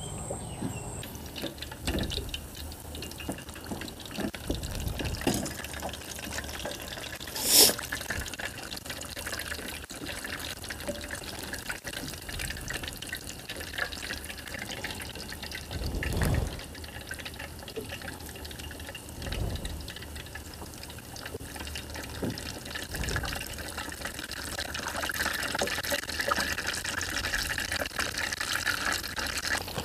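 Prawn fritters frying in hot oil in a small pot: a steady sizzling that grows a little louder near the end, with a few knocks and one sharp clink of the utensils.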